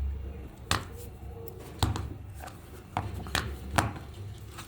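Five sharp clicks or knocks at uneven intervals, over a low steady hum.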